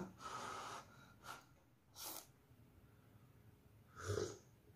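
Eating sounds: instant noodles slurped in a few short, breathy bursts, then a louder slurping sip of hot coffee from a mug about four seconds in.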